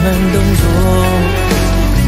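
Background music: a melody over a steady low bass.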